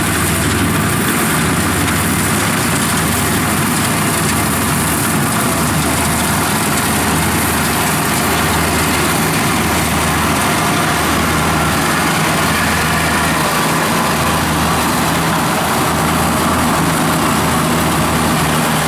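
Kubota DC70 combine harvester running steadily under load while it cuts and threshes ripe rice: a constant diesel engine note with the clatter and rush of the cutter and threshing drum.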